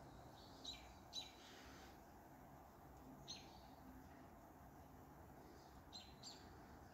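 Faint bird chirps, five short high notes, each a quick falling note, coming in a pair, then one alone, then another pair, over near silence.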